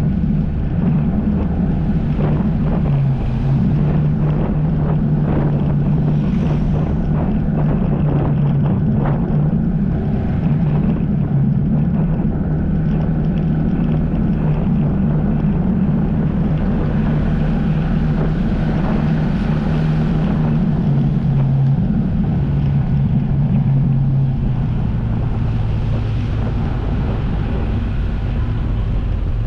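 Jet ski engine running steadily under way, its pitch shifting slightly a few times, with wind buffeting the microphone and water rushing.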